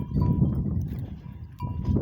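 Goat bells ringing and clinking irregularly over low rustling and crunching from goats feeding on tree leaves.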